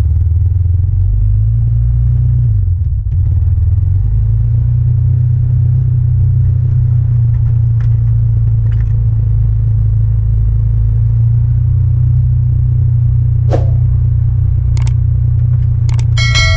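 Honda Foreman 450 ATV's single-cylinder engine running steadily as the quad drives along, a constant low rumble. Near the end come a few sharp clicks and then a ringing bell-like ding from a subscribe-button animation.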